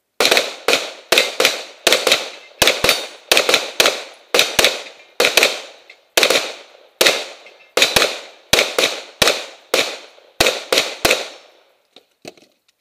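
Handgun firing a long, fast string of some thirty shots, roughly three a second with brief pauses, each shot followed by a short echo. The firing stops about a second before the end.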